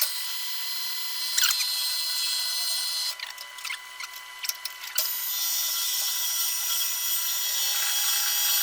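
A power tool working a steel mounting plate: a steady high-pitched whine and grind for about three seconds, a short break with a few clicks, then running again from about five seconds in.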